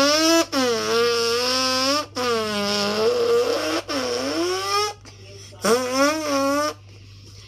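A person imitating a car engine with the voice: long revving vocal sounds that rise and fall in pitch, in several stretches broken by short pauses.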